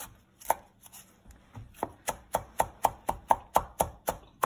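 Knife chopping fresh parsley on a wooden cutting board: a few scattered strikes, then a steady run of about four chops a second from about two seconds in.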